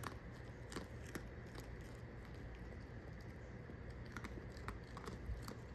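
Young raccoon chewing dry cereal: faint, scattered small crunches and clicks, a few near the start and a quick cluster about four seconds in.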